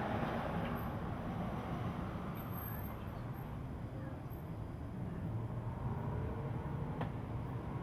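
Steady rushing noise of strong thunderstorm wind, with heavy rain, buffeting the microphone.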